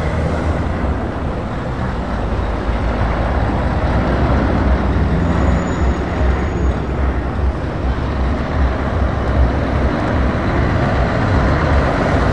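Heavy truck diesel engines: a Scania tractor unit drives slowly past close by, its engine running steadily, over the rumble of more lorries moving up in a queue behind it.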